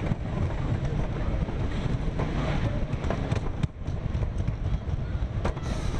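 Wooden roller coaster train rolling along the wooden track, its wheels rumbling steadily with occasional sharp clacks, heard from the front seat with wind buffeting the microphone.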